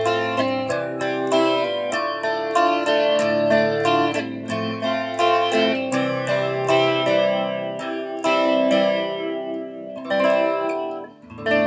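Guitar strummed in chords with no singing, a steady run of sharp strum strokes. The playing drops away briefly near the end, then starts again.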